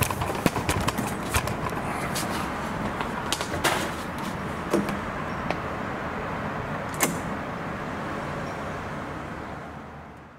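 Apartment front door and its lock being handled: a run of clicks and knocks, then one sharp click about seven seconds in, over a steady outdoor hum that fades out at the end.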